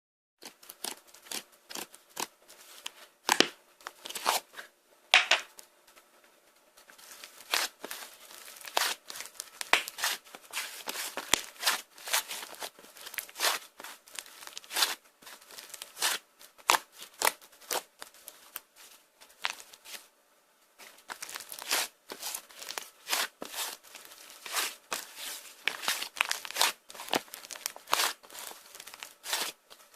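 Light-green pearl slime being worked by hand, giving an irregular run of crisp clicks, pops and crackles. A quieter stretch comes about two-thirds of the way in.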